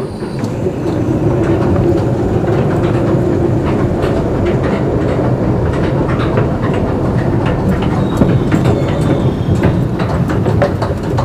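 Escalator running while being ridden down: a steady mechanical rumble with a hum and frequent irregular clicks and clatters from the moving steps, growing louder in the first couple of seconds.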